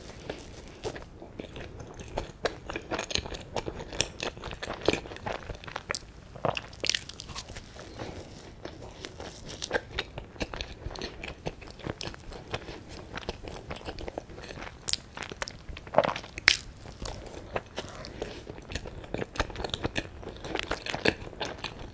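Close-miked chewing and biting of soft matcha cream bread with a cream cheese filling: a steady run of small mouth clicks and soft crunches, with two louder crunches about sixteen seconds in.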